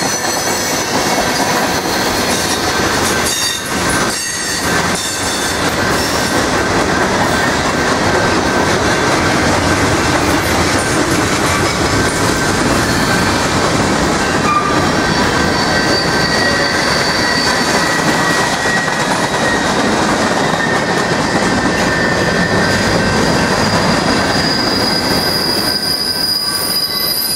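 Freight cars of a manifest train rolling past close by: a steady rumble of steel wheels on rail with a high-pitched wheel squeal over it. A few clacks of wheels over rail joints come about four seconds in.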